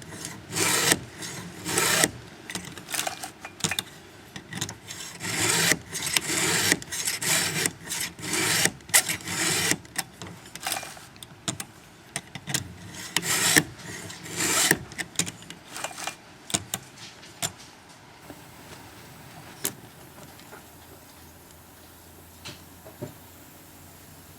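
Round file in a filing guide rasping across chainsaw chain cutters in repeated hand strokes, about one or two a second, evening up all the teeth to the same length. The strokes stop well before the end, leaving only a few faint ticks.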